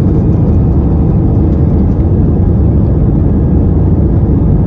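Airliner cabin noise heard from a window seat: a loud, steady low rumble of the jet engines and the aircraft rolling along the ground.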